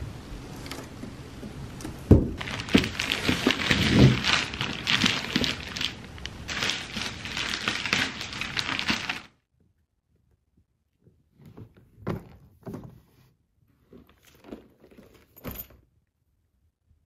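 Plastic wrapping crinkling, with thunks of a cardboard box and a hard-shell suitcase being handled as it is unpacked. About nine seconds in the sound cuts off suddenly, then comes back as a few scattered soft knocks and rustles from the opened suitcase.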